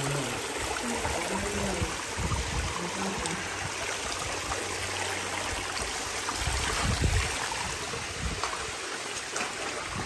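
Water running and trickling steadily around a sandbag-walled rock pool.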